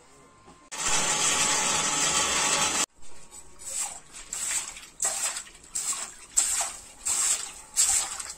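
Red-hot steel billhook blade being quenched with water, hissing and sizzling: one long steady hiss lasting about two seconds, then a string of short sizzles, several a second apart, as the hot edge meets the water again and again.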